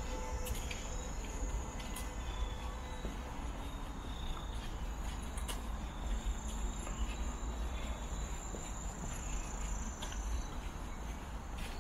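Steady high-pitched insect trilling over a low rumble, with a few faint clicks.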